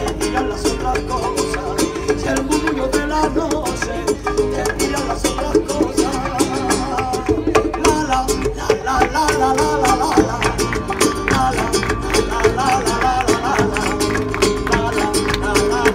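Acoustic guitar played live in a flamenco-style Latin passage, with quick, sharp strummed strokes and plucked melody notes.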